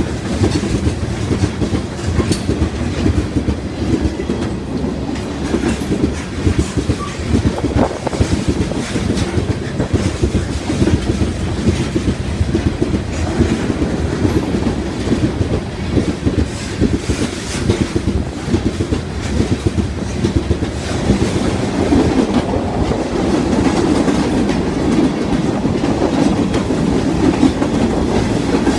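Norfolk Southern intermodal freight train's cars rolling past at speed, steel wheels clattering steadily over the rail joints. The rumble grows a little louder over the last several seconds.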